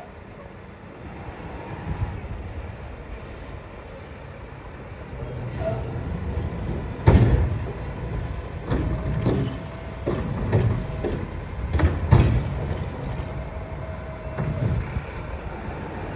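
Mack LR garbage truck's diesel engine revving under load as its Curotto-Can automated arm lifts and dumps a cart, with a hydraulic whine coming and going. A series of loud bangs as the cart is shaken and knocked against the can, the loudest about seven and twelve seconds in.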